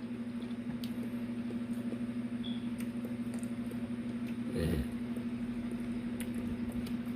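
Faint mouth clicks from someone chewing, over a steady low hum, with a brief low murmur a little past halfway.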